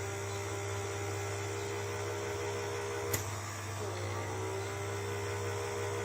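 Small electric pore vacuum running with a steady hum. A higher tone slides down in pitch and settles, and there is one sharp click about three seconds in.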